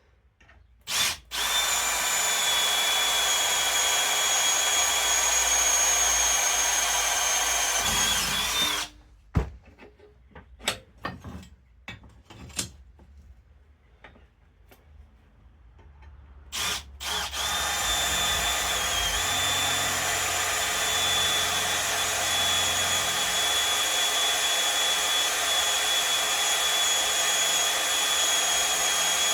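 Electric drill running steadily as it bores rivet holes in metal. It stops a little over a quarter of the way in for several seconds of scattered knocks and clinks, then runs steadily again.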